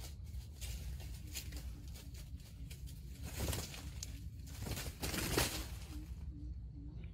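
Wild junglefowl clucking softly in a steady row of short low notes, about two a second, with rustling in dry leaf litter, loudest a little past the middle.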